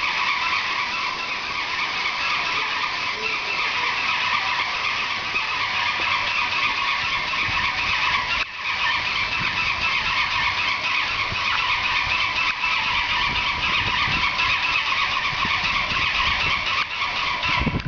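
Airless paint sprayer spraying: a steady high-pressure hiss from the spray tip, broken off briefly about halfway through.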